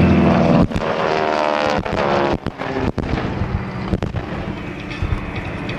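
North American T-6 Texan's Pratt & Whitney R-1340 nine-cylinder radial engine and propeller at high power on a low pass, loudest in the first half-second and then fading as it goes by. Under it is the rumble of ground pyrotechnic explosions.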